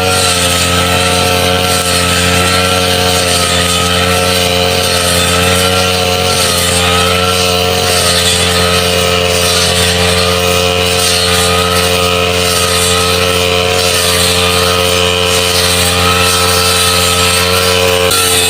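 Brush cutter engine running steadily at a constant speed, its pitch wavering slightly.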